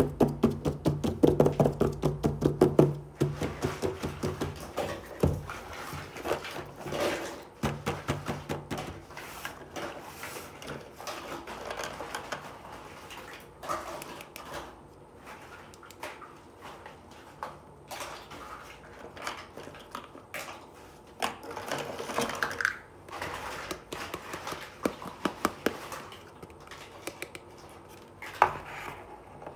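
Small plastic toy kitchen pieces being handled, a string of light clicks, taps and clatters as the parts knock together. The taps are densest and loudest in the first three seconds, with a low hum underneath there.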